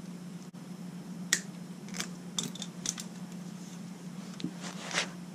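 Scattered light clicks and rattles of a Goped's brake cable and hand tools being handled, over a steady low hum.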